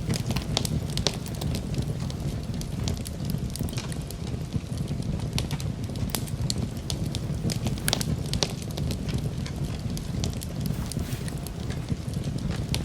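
Campfire of burning wood crackling: irregular sharp pops and snaps over a steady low rumble of the flames.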